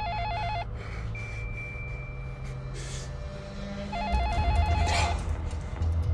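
Wall-mounted telephone ringing with a fast warbling electronic trill: one ring ends about half a second in and another sounds about four seconds in, over a steady low hum.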